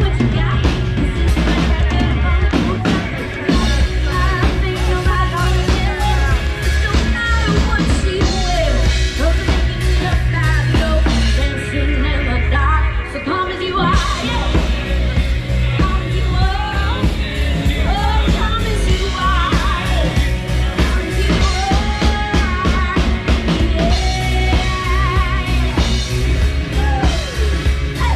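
Live band playing an amplified song: a singer's voice over drums, bass and electric guitar. About halfway through, the drums and bass drop out for a couple of seconds, then come back in.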